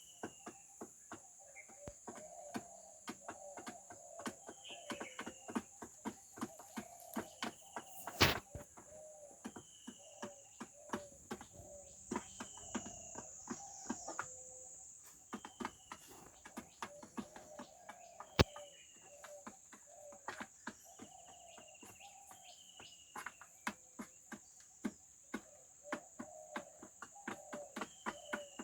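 Chickens pecking at feed, a rapid irregular tapping with two louder knocks, one about 8 seconds in and another past halfway. Over it come low soft clucking, a short falling peep every second or two, and a steady high insect drone.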